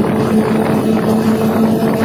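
RGE-20 diesel-electric locomotive running under way, heard from inside its cab: a steady engine drone with a held low note, over a constant rushing noise.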